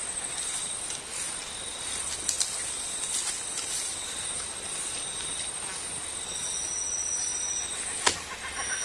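Steady outdoor hiss with thin, high-pitched whining tones that switch on and off, and a single sharp click about a second before the end.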